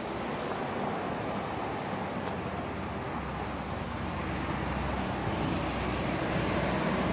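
Street traffic noise, with a vehicle's low engine rumble building from about three seconds in and growing slowly louder.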